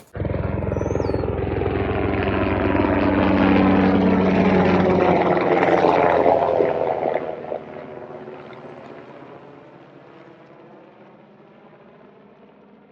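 Helicopter flying past, its rotor beating rapidly over a steady engine drone. It grows louder to a peak around six seconds in, then fades away as it moves off.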